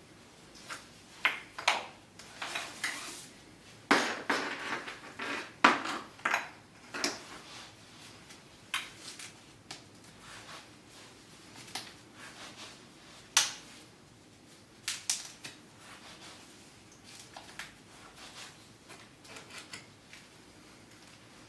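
Irregular metallic clicks, clinks and rattles of hard parts being handled, busiest in the first third and sparser after.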